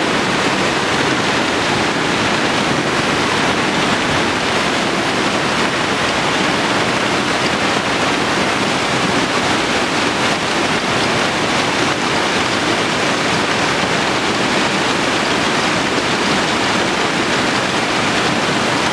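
Steady rush of a big river in monsoon flood, a fast, muddy, silt-laden torrent running at full spate.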